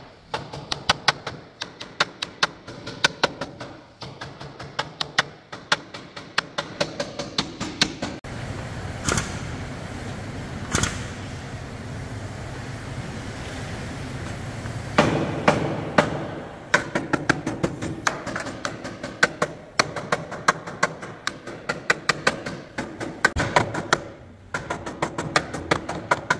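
Hand hammer striking the damaged steel front rail of a van under pull on a frame-straightening bench: quick repeated metal-on-metal blows, about three a second, working the rail straight. The blows stop for several seconds in the middle, leaving a steady low noise and two single knocks, then start again.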